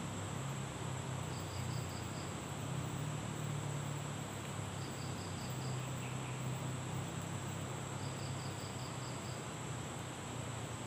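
Insects calling in dense undergrowth: a steady high-pitched drone, with three short trains of rapid chirps, over a low steady hum.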